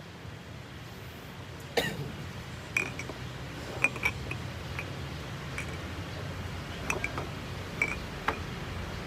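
Cups and utensils clinking lightly: about a dozen short clinks and knocks scattered over several seconds, some with a brief ring, over a steady low hum.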